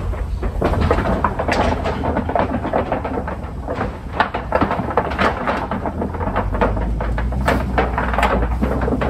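Safari ride vehicle driving along a rough track: a steady low engine and road rumble under dense, irregular knocking and rattling of the truck as it bounces.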